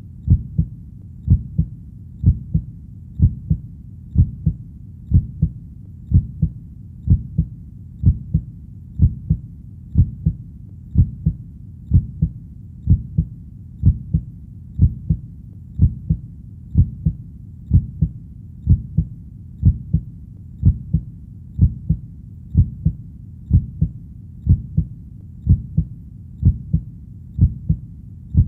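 Heartbeat sound beating steadily at about one beat a second. Each beat is a low double thump, lub-dub, over a faint steady low background.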